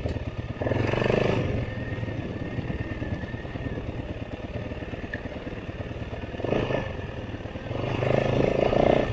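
Dirt bike engine running while riding, opening up under throttle about a second in and twice more near the end.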